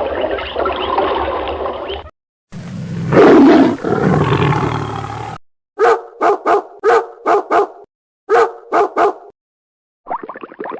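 Dog barking: nine short, sharp barks in two quick runs, six and then three. Before them come two longer animal sounds that can't be made out, and near the end a fast run of short calls starts.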